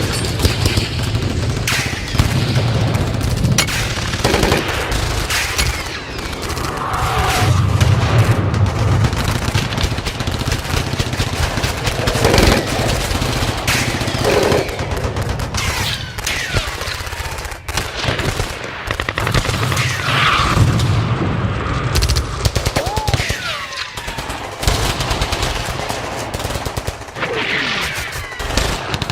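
Battle sound effect: continuous rapid gunfire with machine-gun bursts, over a heavy low rumble of booms and explosions.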